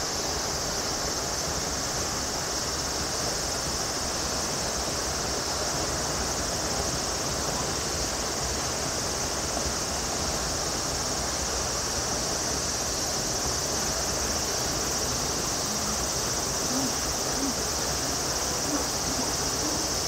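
Steady, high-pitched shrilling of an insect chorus over a constant background hiss.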